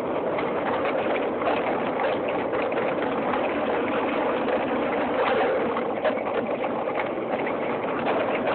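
Mountain bike rolling fast down a loose gravel trail: a steady rush of wind and tyre noise, with many small knocks and rattles as it runs over stones.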